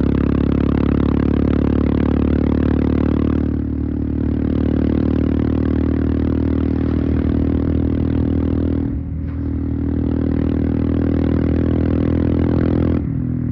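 Royal Enfield Himalayan engine running through an aftermarket Devil Pro Evolution exhaust while riding at a steady throttle. The note eases off briefly twice, about a third of the way in and again about two-thirds in, and picks back up each time.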